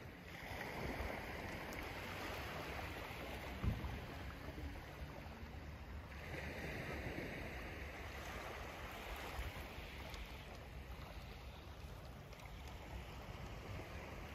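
Small waves lapping and washing onto a sandy shore of calm water, swelling and fading every few seconds over a steady low rumble. A single short thump about three and a half seconds in.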